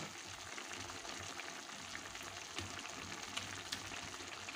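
Tomato sauce simmering in a frying pan: a steady soft crackle of small bubbles popping.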